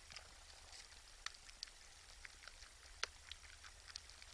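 Faint, irregular clicks and crunches of deer feeding on the ground, over a low steady hum.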